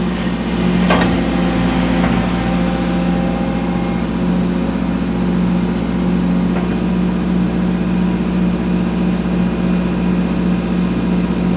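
Excavator's diesel engine running steadily under load. About a second in there is a single metallic clank that rings briefly.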